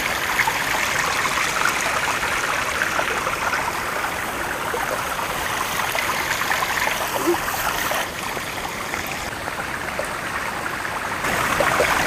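Water running along a narrow, moss-lined stone channel, a steady trickling rush; it grows a little quieter about eight seconds in.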